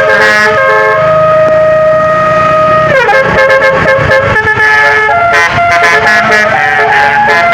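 Telolet (basuri) bus horn playing a tune: a long held note, a slide downward about three seconds in, then a run of quick short notes.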